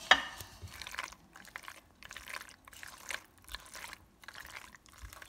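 Silicone spatula stirring penne, shredded cheese and cream sauce in a pot: soft, irregular wet squelches and scrapes, the loudest right at the start.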